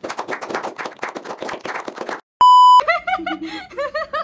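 A small group applauding with dense hand claps that stop about two seconds in, then a short high bleep tone, then a burst of rhythmic laughter.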